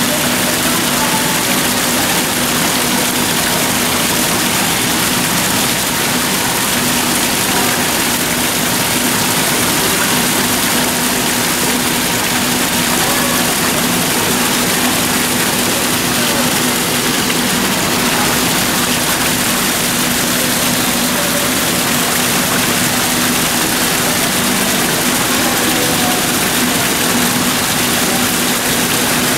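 Steady, loud rushing noise with a constant low hum running through it: the ambient sound of an indoor butterfly conservatory.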